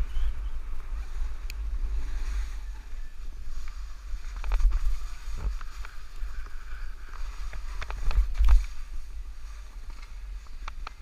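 Wind buffeting a body-mounted action camera's microphone during a downhill run on snow, with the steady hiss and scrape of sliding over packed snow and a few clicks. The rumble gusts louder about halfway through and again about eight seconds in.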